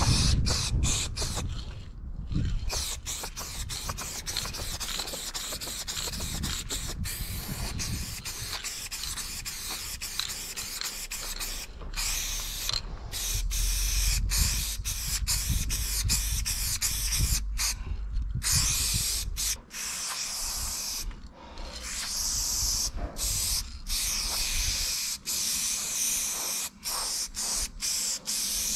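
Aerosol spray paint can hissing as paint is sprayed onto a steel freight car, in long passes broken by many brief stops where the nozzle is let go, over a low rumble.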